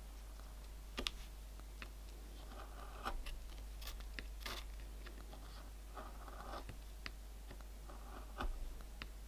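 Lino-cutting gouge carving into a linoleum block: quiet, scratchy cuts as the blade is pushed through the lino, coming in short strokes with pauses between them. A few sharp clicks stand out, the loudest about a second in and near the end.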